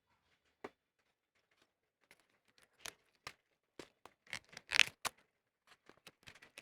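Hands handling a product box and its packaging: scattered light clicks and rustles, with a short rasping rustle about five seconds in, the loudest.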